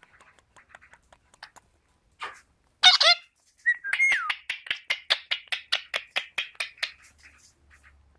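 Indian ringneck parakeet vocalising: a few faint clicks, then a short loud call about three seconds in, followed by a brief whistle and a fast run of chattering notes, about five a second, for around three seconds.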